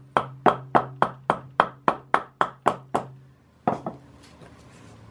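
Wooden mallet tapping on the metal of an antique Goodell-Pratt hand drill: about a dozen quick, even knocks, three to four a second, then a pause and one last knock.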